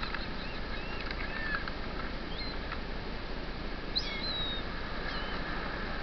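Steady wash of surf breaking on a beach, with short high chirping calls from shorebirds several times, the clearest about four seconds in.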